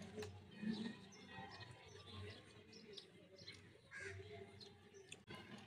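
Faint, scattered bird chirps over quiet background sound.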